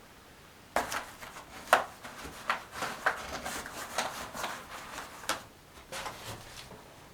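Irregular knocks, clicks and rustling of things being handled, starting about a second in and stopping shortly before the end.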